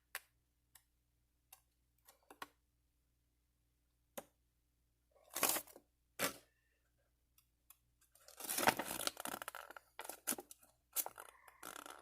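Paper being handled: a few faint clicks and taps, a couple of short rustles around five to six seconds in, then louder, busier rustling from about eight seconds on.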